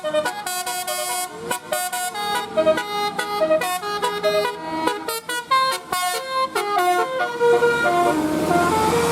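Bus 'telolet' multi-tone horn playing a quick melody of short, stepped notes. From about seven seconds in, a broad rushing noise rises under the notes.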